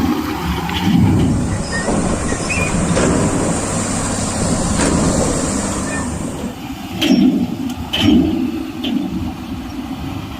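Heavy diesel earthmoving machinery running steadily, with a few sharp metallic knocks near the end.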